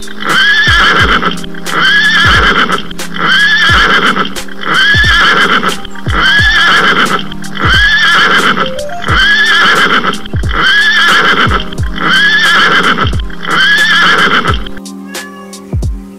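A horse whinny, the same call looped about once a second over music with a kick-drum beat. It stops about a second before the end.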